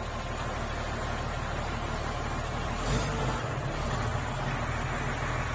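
Komatsu motor grader's diesel engine idling steadily without throttle, with a brief swell about three seconds in.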